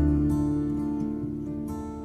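Background instrumental music of gently plucked strings, like an acoustic guitar: a chord rings on and slowly fades, with a few soft higher notes near the end.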